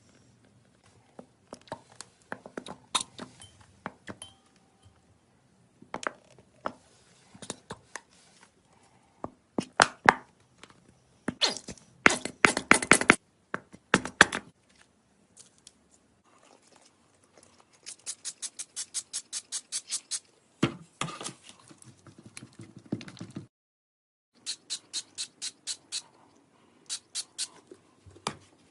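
Slime being handled: bursts of sticky clicks and pops, then runs of quick, evenly spaced clicks near the end.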